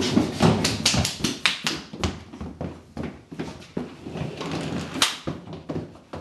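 A run of irregular knocks and bumps from a pair of sliding pocket doors being pulled open and pushed shut, mixed with quick footsteps on a wooden floor. The loudest knock comes about five seconds in.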